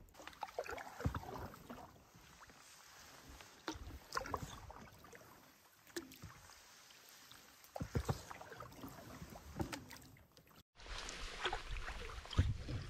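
Canoe paddling on calm water: quiet, irregular paddle dips, splashes and drips with the odd small knock of the paddle. After a short break about three-quarters through, the strokes are louder.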